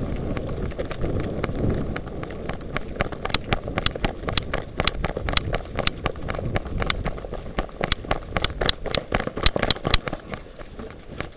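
Running footsteps with gear rattling sharply in time with the strides, about three a second, dying away near the end. A low wind rumble on the microphone runs underneath.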